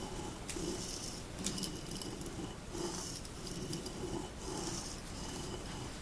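A chisel blade, clamped in a wheeled honing guide, is rubbed back and forth across a whetstone wet with honing fluid. Each stroke makes a hissing, gritty scrape, about one a second.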